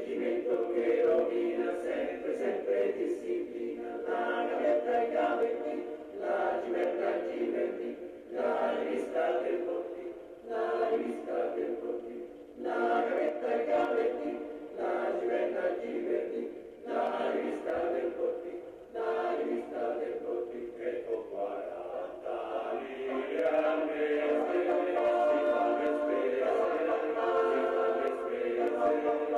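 Background music: a choir singing, in phrases that break off about every two seconds.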